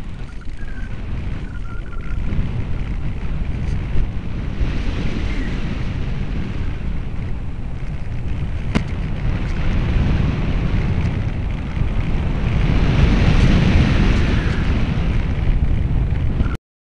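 Wind buffeting the microphone of a small camera mounted on an EasyStar RC plane in flight: a steady, heavy rumble with hiss above it. It grows louder a few seconds before the end, has one sharp click about nine seconds in, and cuts off suddenly.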